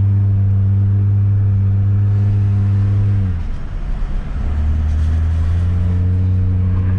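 Car engine running at steady revs; about three seconds in the revs drop and the tone breaks up for a second, as in a lift-off or gear change, then it settles back to a steady drone.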